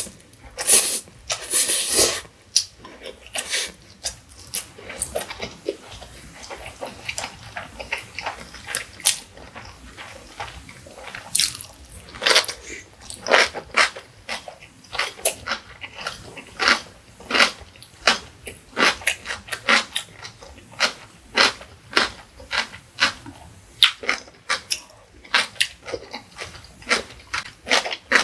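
Close-up mouth sounds of eating instant mi goreng noodles: a wet slurp as the noodles are sucked in during the first two seconds, then chewing with a steady run of soft wet smacks and clicks, about one to two a second.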